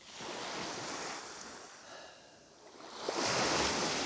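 Surf washing on the shore in two swells of rushing noise, the second louder, near the end.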